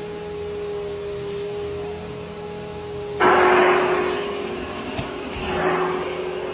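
Upright vacuum cleaner running with a steady whining hum. About three seconds in, a loud rushing hiss of air starts and the motor's pitch drops slightly. The hiss then eases and swells again briefly near the end.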